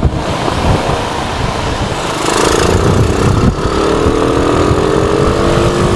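Rusi SS250 sport bike being ridden in traffic, with wind rumbling on the camera microphone. From about two seconds in, the engine's tone comes through and slowly drops in pitch as the bike eases off.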